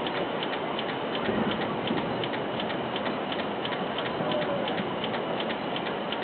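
Steady background noise with a quick, high-pitched ticking, about three ticks a second.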